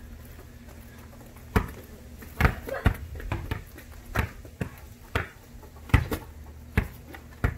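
A basketball dribbled on plastic sport-court tiles: about ten sharp bounces, one every half second to second, starting about a second and a half in.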